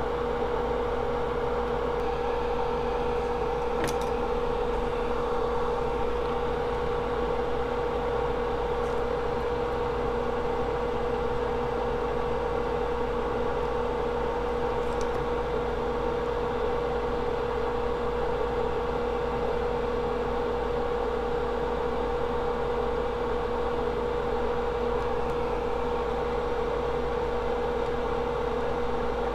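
Steady machine hum of electrical bench equipment, with one constant mid-pitched tone and a few faint ticks now and then.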